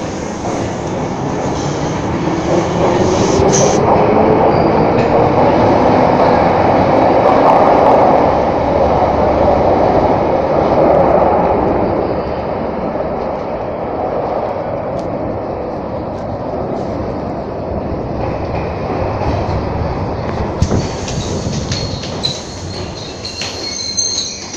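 London Underground train pulling out of the platform: a rising motor whine over a rumble that swells, peaks and then fades as the train leaves. High wheel squeals come near the end.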